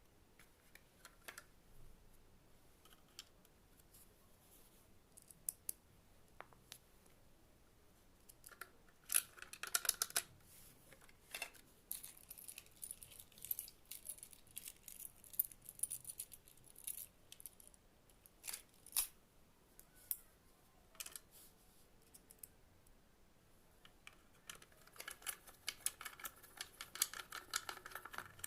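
Scattered clicks, taps and light scraping of small hard parts being handled during work on a clothes iron, with a quick run of clicks about nine seconds in and dense rapid clicking near the end.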